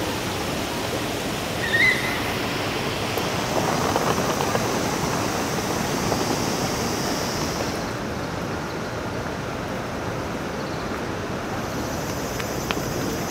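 Steady rushing outdoor background noise, with a short high chirp about two seconds in.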